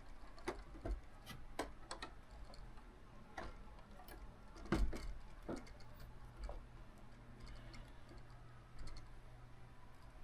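Plastic building-block model pieces clicking and knocking together as a model's floors are handled and set back in place, about ten irregular clicks with one louder knock near the middle.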